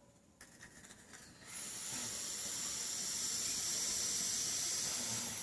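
A steady hiss that comes in suddenly about a second and a half in and holds level to near the end, with faint high whistling tones running through it.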